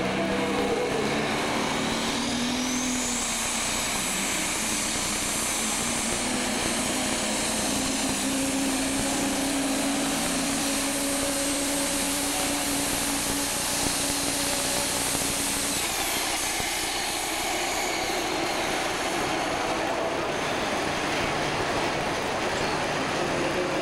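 Super stock pulling tractor's turbocharged diesel engine at full throttle, pulling the weight-transfer sled down the track. A high whine climbs over the first few seconds, holds, then falls away about 16 seconds in as the pull ends and the engine comes down, still running loudly.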